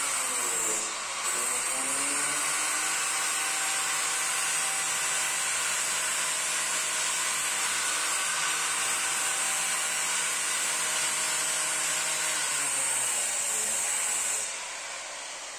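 Angle grinder with a cut-off disc cutting through the rusted sheet metal of a car's wheel arch. It runs at high speed with a steady whine, and the motor pitch sags and recovers as the disc bites. It dips briefly about a second in and stops near the end.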